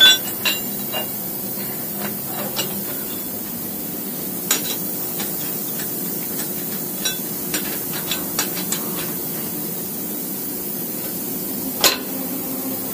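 Scattered metal clinks and knocks of steel wrenches and clamping hardware as a workpiece block is fastened down on a CNC milling machine, the sharpest at the start and near the end. A steady machine hum runs underneath.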